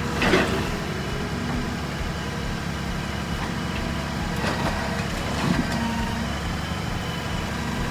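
Engine of a debris-collection truck running steadily.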